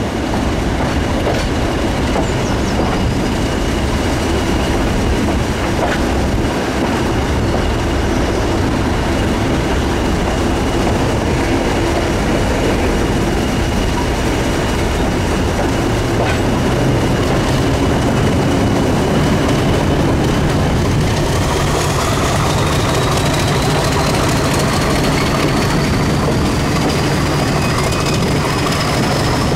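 British Rail Class 50 diesel locomotive's English Electric V16 engine running under way close by, with wheels rumbling and clacking over the rail joints. A thin high whine runs over it and climbs steadily in pitch through the last third.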